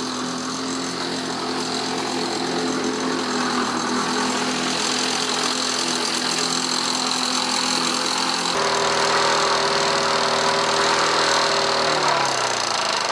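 1977 Lawn-Boy mower's two-stroke engine running steadily. Its pitch jumps higher about eight and a half seconds in, then falls away near the end as the engine slows.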